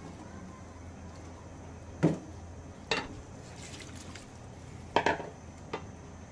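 Sharp knocks of a wooden spatula and plastic bowl against a cooking pot, the loudest about two seconds in, with water poured from the bowl into the pot of beef a little after three seconds, to simmer it.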